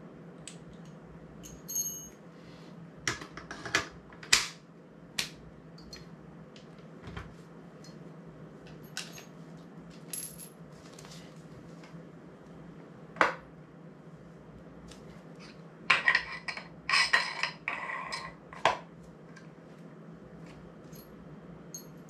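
Small metal parts of a camera quick-release system clicking and clinking as they are handled and set down on a tile floor. The clicks are scattered and single, with a busy run of clinks about three-quarters of the way through.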